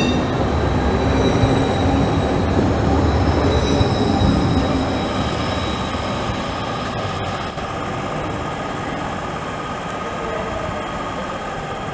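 Street trams on rail. A tram passes close by with a heavy low rumble and thin high wheel squeal in the first half. From about five seconds in, quieter running with steady whining tones as trams roll slowly through the junction.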